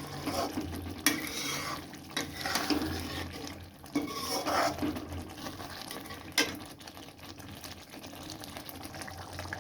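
Spinach-and-paneer gravy being stirred in a pan over a low flame: the spoon scrapes through the thick gravy in bouts and knocks against the pan, sharply about a second in and again past the middle.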